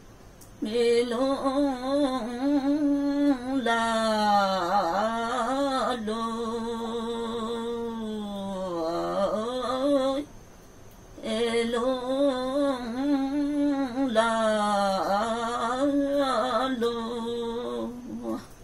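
A woman singing unaccompanied in the Limbu Tamke (Tam:awke) folk style: two long phrases of held, wavering notes, each sliding down in pitch near its end, with a short breath pause between them about ten seconds in.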